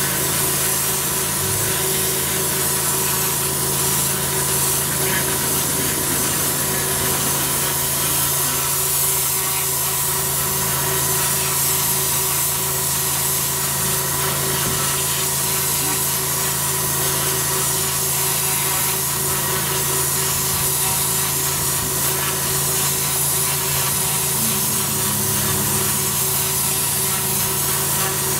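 High-pressure jet wash from a twin-headed rotating turbo lance blasting moss and dirt off concrete block paving: a loud, steady hiss of water on the blocks over a constant machine hum. The hiss swells and fades in slow, even waves every couple of seconds as the lance is swept.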